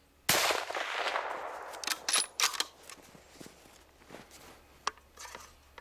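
A single 6mm Creedmoor rifle shot, loud and sudden, with its report rolling away over about a second; this is the first shot, which missed high over the coyote. About two seconds in come several quick sharp clicks, the rifle's bolt being worked for another shot.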